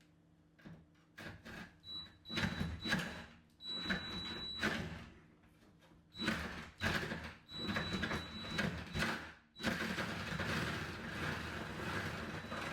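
Reciprocating saw cutting through a wooden door in short stop-start bursts, its motor giving a thin high whine, then running steadily for the last few seconds.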